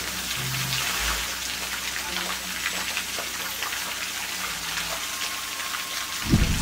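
Fountain water jets spraying and splashing steadily into the basin, a hiss like rain, with faint low tones underneath. A sudden loud low boom comes near the end.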